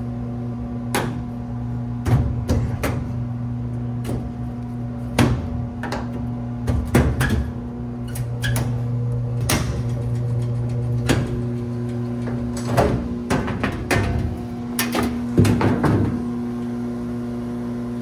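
Irregular knocks, clicks and metallic clunks as the sheet-metal front panel of a GE washer-dryer combo is released with a screwdriver and pulled off, busiest near the end. A steady low hum runs underneath.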